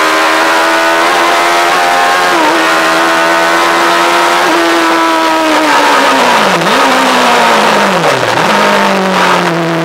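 Yamaha R1 inline-four motorcycle engine in a lightweight Seven-style track car, heard from onboard, held at high revs for the first half. The revs then fall twice, jumping back up at the end of each fall, as it shifts down approaching a corner.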